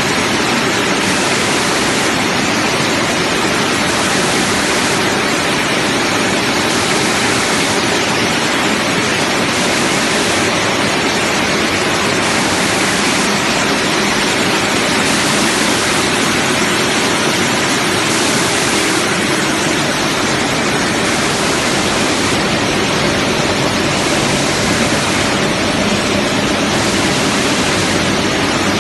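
French fries processing line machinery running, with blower fans, vibrating conveyors and belts: a loud, steady rushing noise that holds even throughout.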